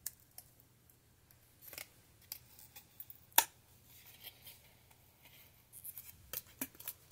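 Hands handling a toy glider's thin wing sheet and its plastic fuselage piece: scattered clicks and rustles, with one sharp plastic snap about three and a half seconds in and a quick run of clicks near the end.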